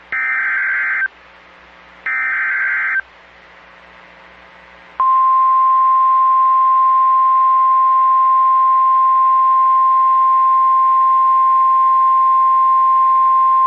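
NOAA Weather Radio alert signalling. Two one-second bursts of buzzy SAME header data sound about a second apart. After about two seconds of quiet, the single steady 1050 Hz warning alarm tone comes in about five seconds in and holds loudly. Together they announce a new severe thunderstorm warning.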